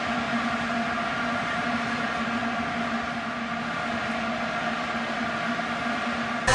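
Steady drone of many vuvuzelas blown by a stadium crowd: one unbroken buzzing horn note with its overtones, over general crowd noise.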